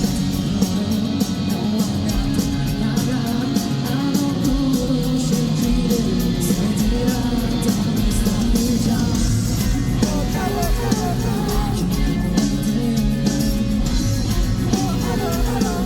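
Live rock band playing a loud, driving song: distorted electric guitars and drums with a steady beat, and a singing voice carrying the melody in the second half.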